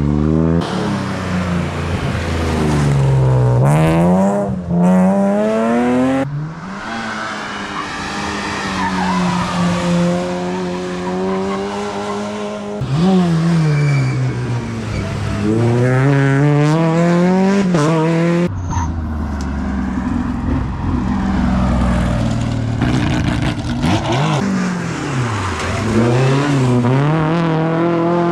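Rally car engines revving hard through the gears on a stage, pitch climbing under acceleration and dropping at each shift or lift, over several passes spliced together with abrupt cuts.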